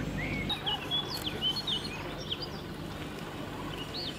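Small birds chirping in quick, short notes that sweep up and down. A low steady hum underneath stops about half a second in.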